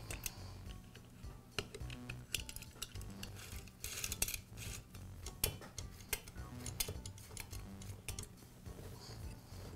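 Scattered light metal clicks and clinks as a muffler is set onto a small engine and its screws are turned in with a T-handle hex driver.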